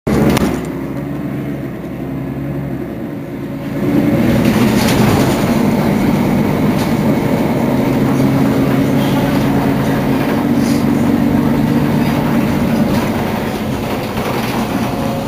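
Mercedes-Benz Citaro Facelift city bus engine idling at a stop, heard from behind the bus; about four seconds in it gets louder and then runs steadily.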